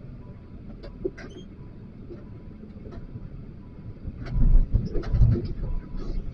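XCMG LW500HV wheel loader running, heard from the operator's seat: a steady diesel rumble with scattered knocks and clatter. From about four seconds in the engine grows much louder, with a cluster of knocks, as the machine works under load.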